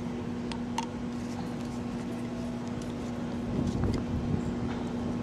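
Steady low hum with a few faint clicks of a screwdriver and small metal parts as a hydraulic steering helm pump is reassembled by hand.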